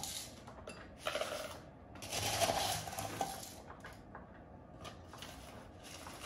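Rocky pumice and lava-rock substrate rattling and scraping as it is scooped out of a metal mesh strainer with a plastic scoop and poured into a plastic nursery pot. It comes in a few short bursts, the loudest about two to three seconds in.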